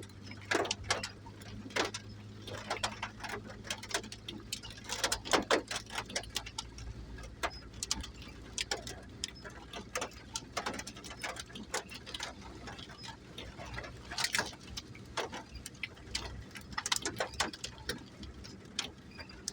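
Irregular sharp taps of raindrops dripping onto a hard surface, a few a second at uneven intervals, over a low steady hum that fades out about six seconds in.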